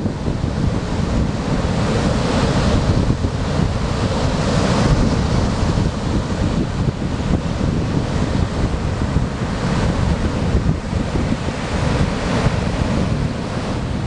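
Typhoon-force wind buffeting the microphone over rough surf, with waves breaking and washing in swells every few seconds.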